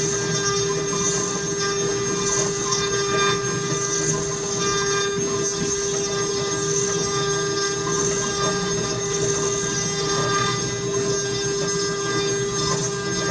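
CNC router spindle running with its end mill cutting a wooden blank turned in a rotary-axis chuck: a steady whine over the rasp of the cut.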